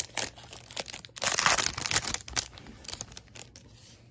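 Foil wrapper of a Topps Chrome baseball card pack crinkling and tearing as it is ripped open and the cards are pulled out, loudest from about a second in, then fading away.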